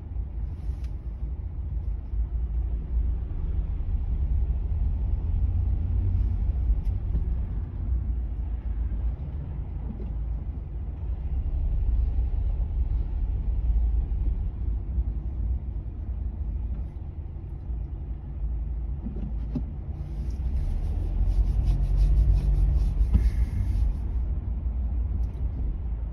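Low rumble inside a car cabin: engine and tyre noise of a car creeping along in heavy highway traffic, swelling and easing as it moves.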